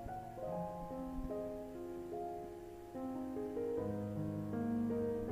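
Soft background piano music: a slow run of held notes that step from one pitch to the next.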